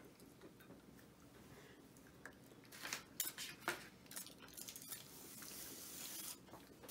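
Foil wrapper of a chocolate bar being handled, crinkling faintly, with a few sharp crackles about two to four seconds in.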